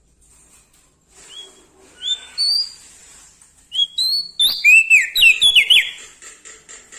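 Small songbird singing clear whistled notes: a few separate rising notes, then a loud quick run of down-slurred whistles about halfway through.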